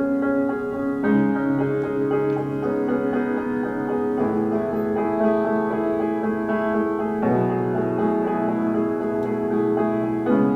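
Piano playing slow, sustained chords in a classical chamber piece, the harmony changing about every three seconds.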